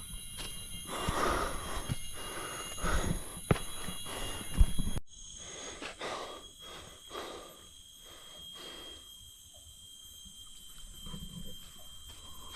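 A hiker breathing hard, with knocks and scuffs of movement, over a steady high-pitched drone of jungle insects. The breathing and knocks are quieter after a sudden change about halfway through.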